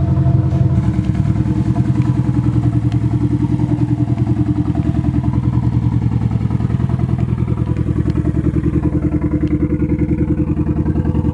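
Nissan SR20 four-cylinder engine running at a steady idle with an open downpipe, so the exhaust exits just under the car: a loud, rapidly pulsing exhaust note that holds steady.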